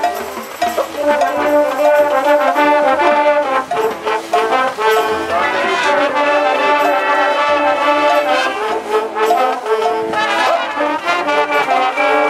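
Marching band brass section playing sustained chords that change every second or so, with sousaphone, trombones and trumpets sounding together.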